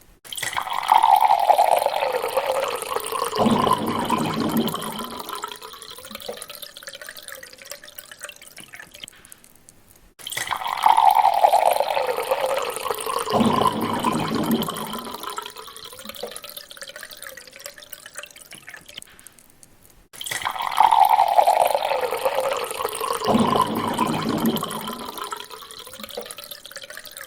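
Water poured into a glass, three pours about ten seconds apart. Each starts suddenly, carries a tone that falls as it goes, and trails off over several seconds.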